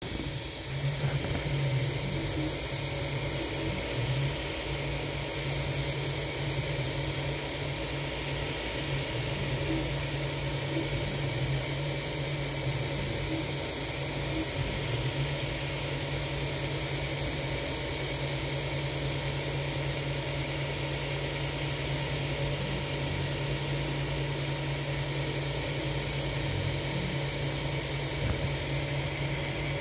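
Sovol SV04 3D printer running a print. A steady fan whir with a high whine sits over a low motor hum that wavers and breaks up irregularly as the print head moves.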